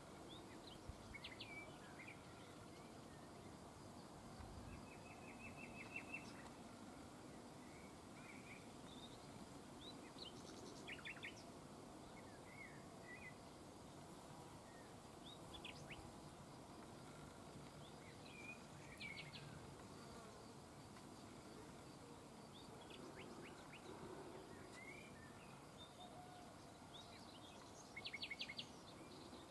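Faint outdoor ambience with a low steady hiss, over which small birds give scattered high chirps and a few short rapid trills, the most prominent about six seconds in, around eleven and nineteen seconds, and near the end.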